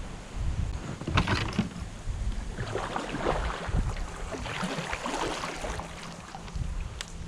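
Strong wind buffeting the microphone, with water slapping and splashing against a kayak hull in patches.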